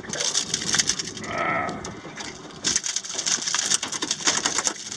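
A freshly landed spotted mackerel flapping on the aluminium floor of a dinghy: a rapid, irregular patter of slaps and knocks against the metal, densest in the second half.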